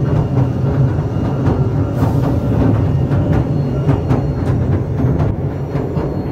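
Passenger train running on rails, heard from inside the carriage: a steady low rumble with a quick, uneven run of wheel clacks.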